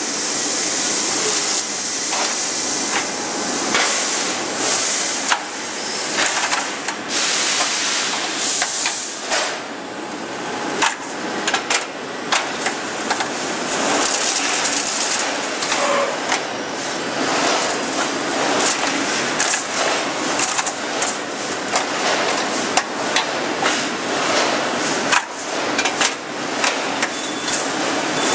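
Steel mill machinery with steel bar bundles on a roller conveyor: a constant high hiss under frequent, irregular metallic clanks and knocks.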